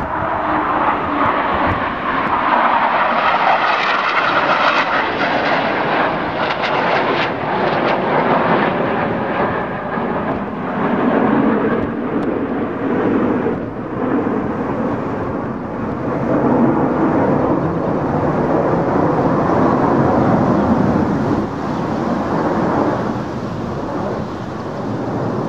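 Jet engine noise from a formation of F/A-18 Hornet fighter jets flying overhead, a continuous rushing drone that swells and eases. It turns deeper after about ten seconds as the formation moves on.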